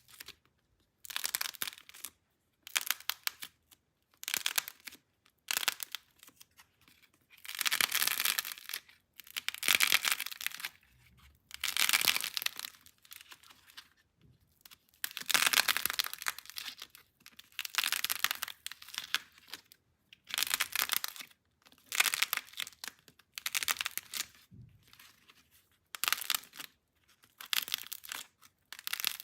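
Slime being squeezed and stretched by hand, crackling and crinkling in repeated bursts with short pauses between them.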